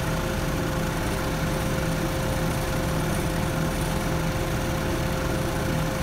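Tractor engine running steadily under load as it pulls a plough through the soil, with a constant thin whine over the engine.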